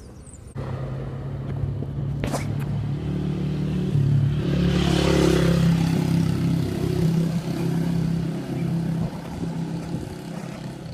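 A motor vehicle's engine passing close by on a cobbled street, a low steady hum that swells to its loudest around the middle and then fades. A sharp click about two seconds in.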